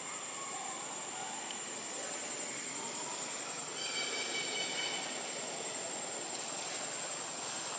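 Steady outdoor background noise with a constant high-pitched whine, and a brief pitched call about four seconds in.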